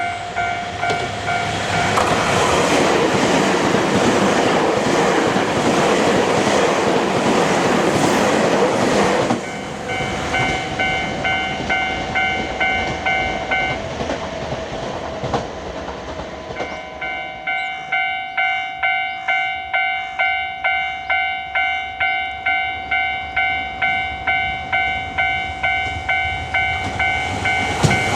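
A Nankai Kōya Line train runs over the level crossing for the first several seconds, over the crossing's warning bell. The train cuts off suddenly; the bell rings on, stops briefly, then starts again at about two strokes a second as the next train approaches, and that train reaches the crossing at the very end.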